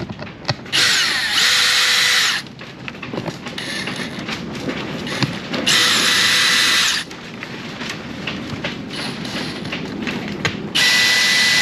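Power drill backing screws out of a teak deck in three runs of about a second or so each, with quieter clatter between them.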